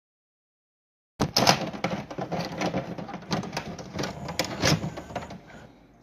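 About a second of dead silence, then a sudden burst of dense clattering noise full of sharp clicks that fades away toward the end.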